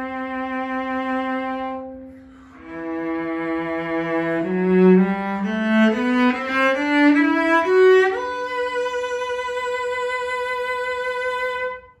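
A 1928 E.H. Roth cello from Markneukirchen, bowed solo. It holds a note, breaks off briefly, then climbs note by note to a long high note with vibrato, which stops just before the end.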